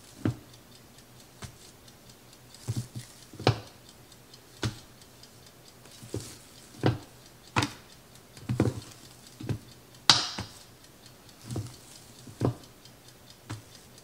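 Wooden spatula knocking and tapping on an enamelware canning pot and metal trays while mashed potatoes are scooped out and dropped in mounds, about a dozen sharp irregular knocks, roughly one a second, the loudest about ten seconds in.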